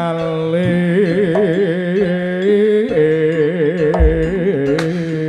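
Jaranan gamelan music: a slompret, the Javanese shawm, plays a wavering, ornamented melody over a steady low held tone. There is a brief low thump about four seconds in and a single sharp crack near the end.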